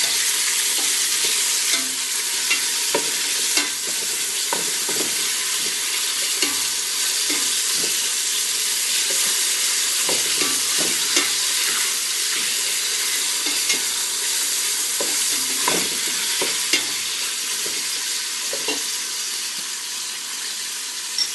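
Onions sizzling in hot oil in a soup pot as they are stir-fried, a steady hiss broken by irregular scrapes and taps of the cooking utensil against the pot.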